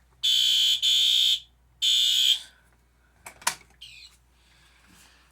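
Fire alarm horn set to code 3 (temporal-three pattern) at low volume, sounding three loud blasts in about two seconds, the first two almost joined, then stopping. A few sharp clicks follow about a second later.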